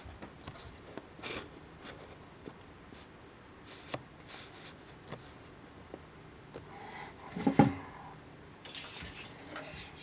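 Faint scattered clicks and rubbing from parts being handled on a workbench, with a louder clatter of knocks about seven and a half seconds in.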